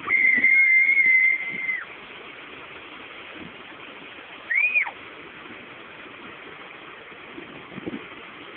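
A person whistling: one long steady high note, then a short whistle that rises and falls about four and a half seconds in. Under it runs the steady rush of the Cusarare waterfall.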